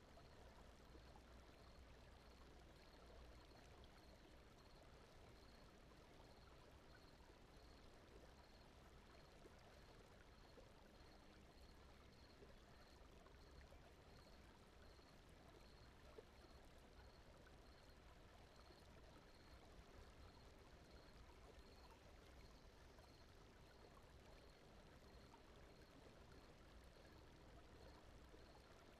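Faint, steady ambient noise bed like a gently flowing stream, with a faint high tick repeating about twice a second.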